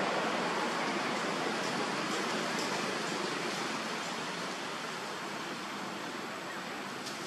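Steady rushing of flowing muddy rainwater, an even hiss that slowly grows quieter.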